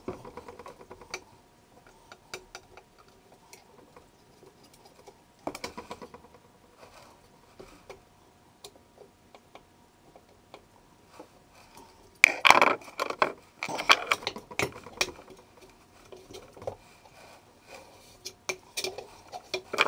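Screwdriver clicking and scraping against an electric motor's start-capacitor cover as the cover is worked loose: scattered light metal clicks, with a louder spell of rattling and scraping a little past the middle.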